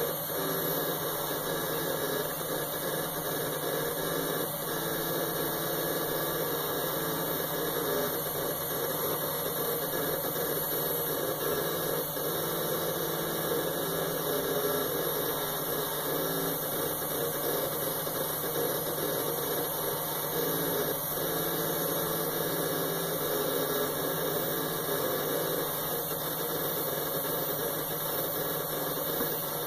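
Old 10,000 rpm IBM Ultrastar 36 GB hard drive spinning in an old, noisy computer case, a steady whine and hum that holds one pitch throughout.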